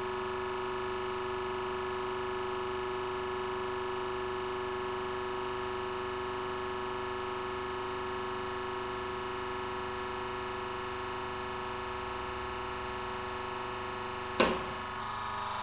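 Steady electric hum made up of several held tones, with one short sharp snap about fourteen seconds in.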